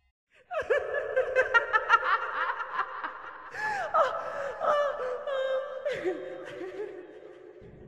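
Eerie laughter used as a horror sound effect, starting about half a second in, with quick cackling bursts that thin out and fade near the end.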